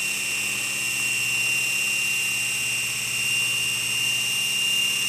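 Ninja food chopper's motor running steadily with a high whine, blending cottage cheese smooth.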